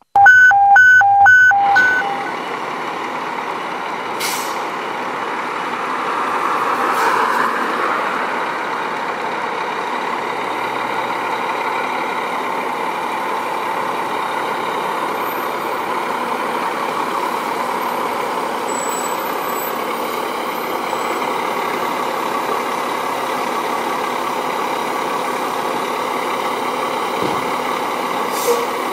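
2010 Spartan Gladiator/Smeal fire engine running steadily as it pulls out of the station, with no siren. The sound opens with a quick series of loud electronic beeps, about three a second, that stop within two seconds. About seven seconds in the engine sound swells louder for a moment.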